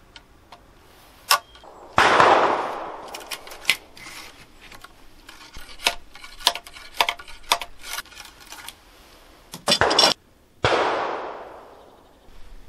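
Two gunshots, about two seconds in and again near the end, each with a long echoing tail dying away over a second or two. Between them come light sharp clicks and taps of a ramrod working in the barrel of a muzzle-loading rifle.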